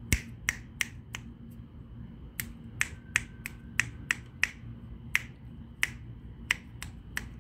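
A person's fingers snapping again and again, sharp single clicks at an uneven pace, often two or three a second, calling a kitten's attention.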